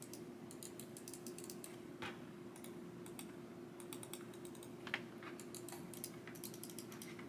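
Faint, irregular plastic clicking of a new Corsair gaming mouse's buttons being pressed while it is held in the hand, a little sharper about two and five seconds in, over a low steady room hum.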